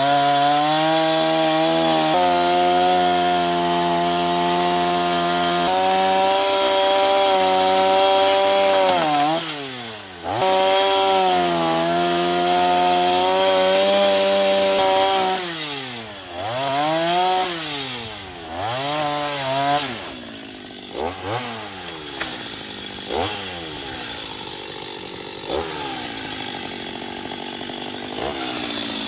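Stihl MS 210 two-stroke chainsaw cutting through a thick tree branch at full throttle for about fifteen seconds, the engine dipping for a moment near ten seconds. The throttle is then let off and blipped a few times, the pitch falling and rising, before the saw settles to a lower idle for the last third, with a few light knocks.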